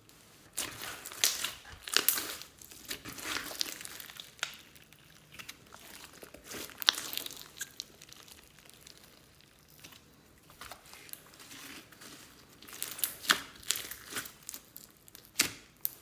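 Glossy beaded slime being kneaded, pressed and stretched by hand: irregular sticky crackling with sharp little pops and clicks, quieter for a few seconds past the middle.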